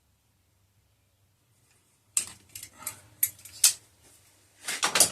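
Near silence, then from about two seconds in a run of sharp metallic clicks and clinks, like metal engine parts and hardware being handled on a workbench, growing busier near the end.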